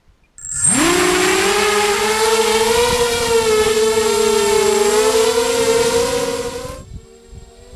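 Emax Nighthawk 250 racing quadcopter's four brushless motors and propellers spinning up from rest about half a second in, then a steady high whine that wavers a little in pitch with the throttle while flying fast, heard from the onboard camera. Near the end the whine drops sharply in level as the throttle is pulled back.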